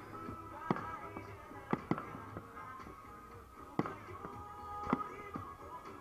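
Aerial firework shells bursting: about five sharp bangs with a short echo after each, two close together near the two-second mark, over continuous music.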